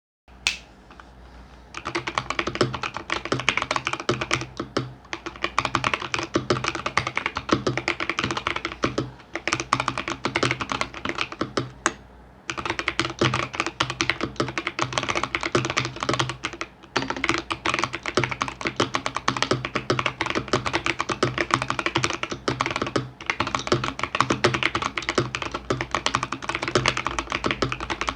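Typing on a mechanical keyboard with stock Gazzew Boba U4T tactile switches on 68 g springs: a fast, dense run of keystroke clacks that starts about two seconds in, with brief pauses around 5, 12 and 23 seconds in.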